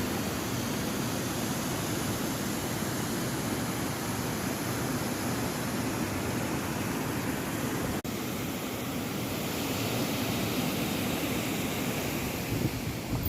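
Steady rushing of river water, an even noise without pitch, broken off for an instant about eight seconds in.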